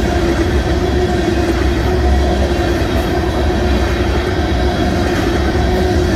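Freight train tank cars rolling past: a steady loud rumble of steel wheels on the rails with a steady low hum.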